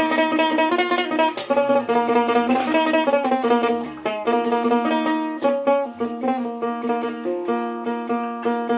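Dotara, a Bengali long-necked plucked lute with metal strings, played solo in a quick run of picked notes over a repeated low drone note.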